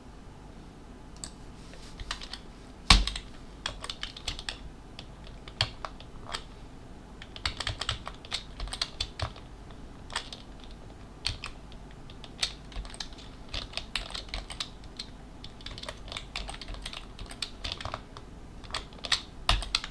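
Keystrokes on a computer keyboard: irregular clicks, some in quick runs and others spaced apart, with one louder key strike about three seconds in.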